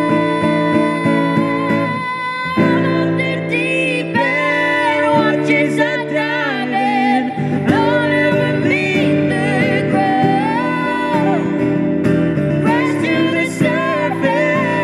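A female and a male voice singing a duet over a strummed acoustic guitar.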